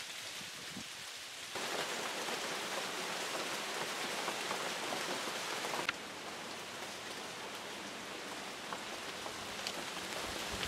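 Rain falling, a steady even hiss that grows louder about a second and a half in and eases again about six seconds in, with one sharp click at that point.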